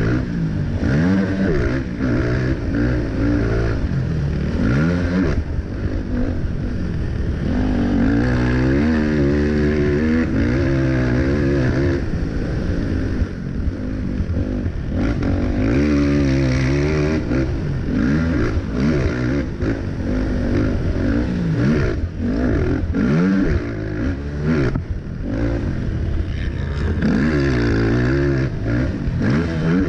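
Racing quad's engine heard from on board, revving up and dropping back again and again as the rider accelerates, shifts and brakes around a motocross track, with clattering from the machine over the rough dirt.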